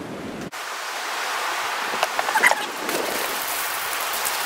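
Water poured from a stainless steel bowl over a dog's coat, a steady splashing hiss that starts abruptly about half a second in.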